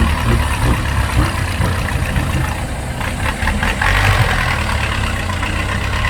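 Heavy diesel engine running steadily with a low, continuous rumble.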